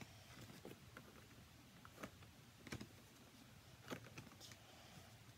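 Near silence broken by a handful of faint, short clicks and light knocks of hard plastic animatronic-prop parts being handled and fitted together.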